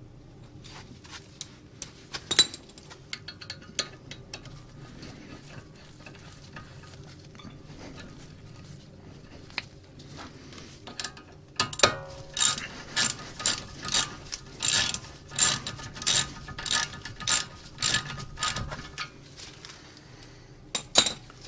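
Socket ratchet tightening the brake caliper carrier bolts on a VW Tiguan's front hub, a few metal clinks, then a run of ratcheting strokes about twice a second for some seven seconds in the second half.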